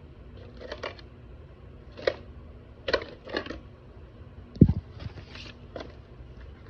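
Rummaging: small clicks, taps and rustles of objects being picked up and moved while searching for earrings, with one heavier low thump about four and a half seconds in.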